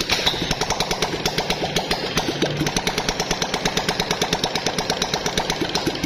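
Honda CB150F single-cylinder four-stroke engine running with its valve cover off after a top-end rebuild (new timing chain, valves and piston kit). The exposed rocker arms and cam chain add a fast, even mechanical clatter to each beat.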